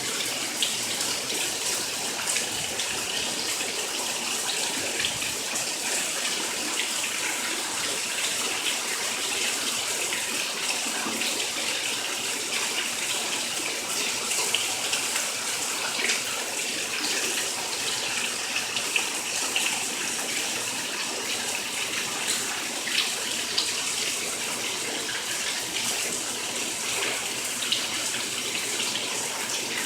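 Steady rush of rainwater from flooding, with scattered small splashes.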